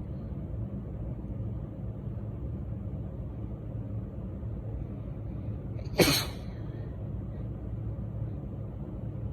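A woman's single sharp, barky allergy sneeze about six seconds in, over a steady low background rumble.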